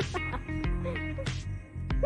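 Background music with a steady beat, bass and sung or melodic lines.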